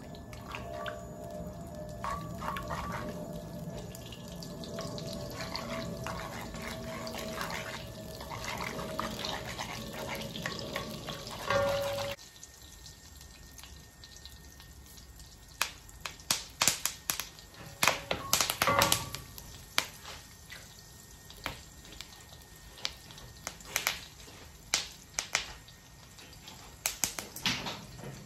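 Fat frying in a hot wok: a steady sizzle at first, then, after a sudden drop about twelve seconds in, quieter with many sharp crackling pops and spits scattered through the rest.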